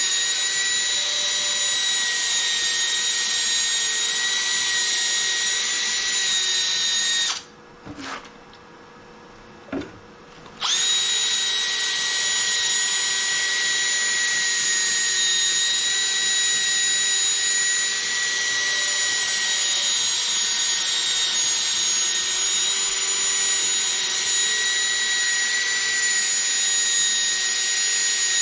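Cordless drill spinning an 800-grit sanding disc against a plastic headlight lens: a steady high whine. It stops about seven seconds in for around three seconds, with a couple of light knocks in the pause, then starts again.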